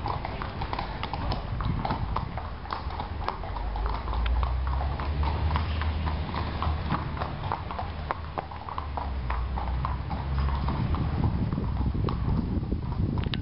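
Horses' hooves clip-clopping at a walk on hard ground: a steady run of sharp hoof strikes over a low rumble.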